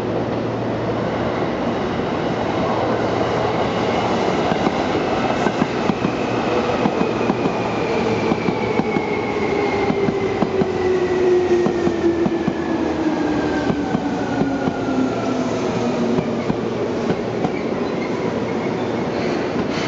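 Seibu new 2000 series eight-car electric train pulling into a station: steady wheel rumble with clattering knocks over rail joints and points, and a whine that falls steadily in pitch as the train slows.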